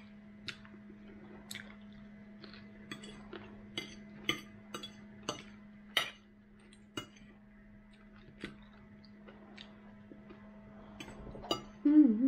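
A metal fork clinking and scraping on a ceramic dinner plate, a dozen or so sharp clicks at irregular intervals, with chewing in between, over a steady low hum. Just before the end comes a short, louder voice-like sound.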